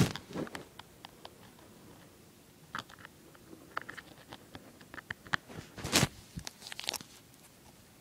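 Handling noise close to the microphone: scattered clicks, taps and short scrapes in small clusters, with the loudest rustling scrape about six seconds in.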